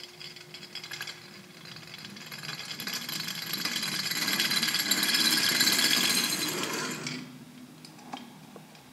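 Small tin spinning top slowing and wobbling, its tilted metal rim rattling and scraping against the tabletop. The rattle grows steadily louder for several seconds and stops fairly suddenly about seven seconds in, with one light knock a second later.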